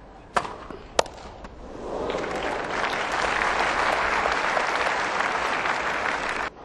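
Two sharp tennis ball strikes off racket strings about half a second apart, then a crowd applauding, swelling up and holding steady before cutting off suddenly.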